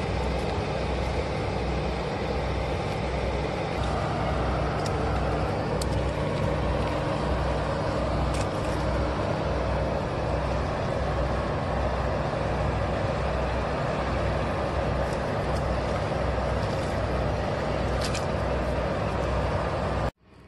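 Steady rushing of water from a dam outlet, with a low, evenly repeating throb underneath and a few faint clicks. It cuts off suddenly near the end.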